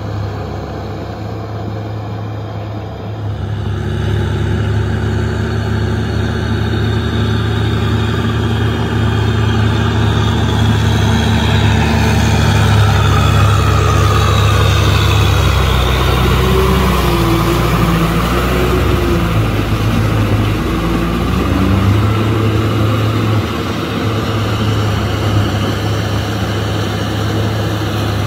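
Kubota M6040SU tractor's four-cylinder diesel engine running under load while working a rotary tiller through wet mud. It grows louder as the tractor passes close by midway, and its pitch wavers for several seconds before steadying.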